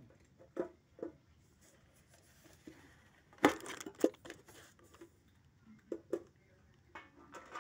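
Cats crunching dry kibble pellets: a few short, scattered crunching and rustling sounds, with one much louder sharp rustle about three and a half seconds in.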